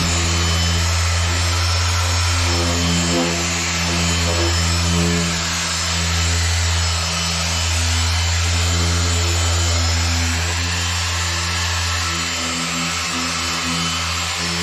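Griot's Garage dual-action polisher running at speed setting 4, buffing cutting compound on a painted bumper: a loud, steady motor hum.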